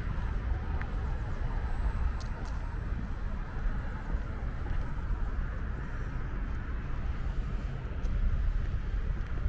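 Steady outdoor background noise: a low rumble with a hiss above it and no distinct events.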